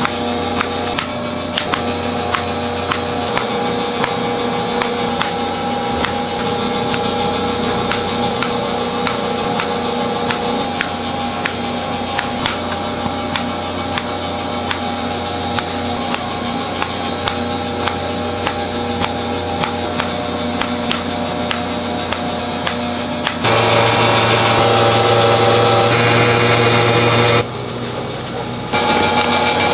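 Kitchen knife slicing through strawberries onto a plastic cutting board, a steady run of sharp taps over a constant machine hum. Near the end a louder steady machine hum comes in for a few seconds.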